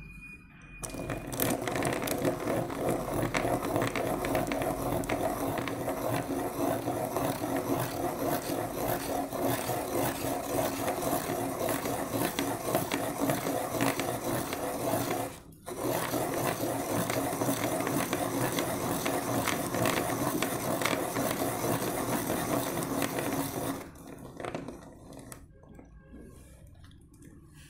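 Hand-cranked auto-feed pencil sharpener being turned, its cutter shaving a wooden pencil with a dense, steady grinding rasp. There is a brief break a little past halfway, and it stops a few seconds before the end.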